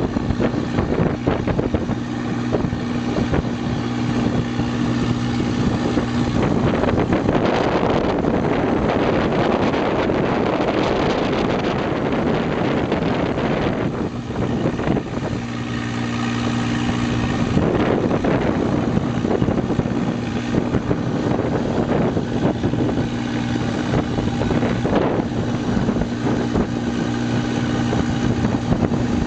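Longtail boat engine running steadily at one pitch. For several seconds in the middle a loud rush of wind on the microphone covers it.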